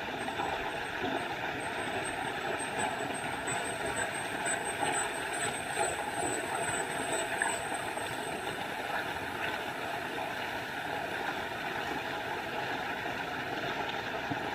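Small forest waterfall: a steady, even rush of falling water. A faint, high, thin trill of quick pulses runs above it through the first half and stops about halfway through.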